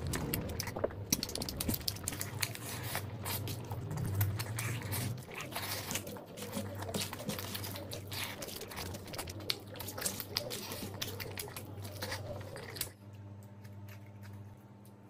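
Close-miked, wet eating by hand: rice and mutton curry squished between the fingers and chewed open-mouthed, with many quick smacks and crackles. Near the end it drops to quieter chewing over a low steady hum.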